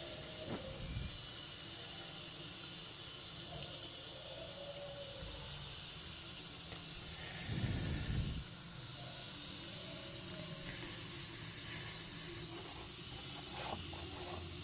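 Steady background hiss, with a brief low rustling bump about eight seconds in.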